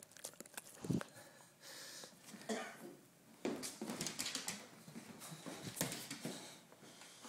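Dog snuffling and snorting right at the phone's microphone in irregular noisy bursts, mixed with the bumps of the phone being handled.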